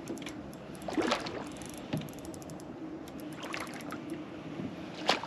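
Water and boat sounds while a hooked fish is fought on a spinning rod from a small skiff: a steady low hum with a few brief sharper sounds, the strongest about a second in.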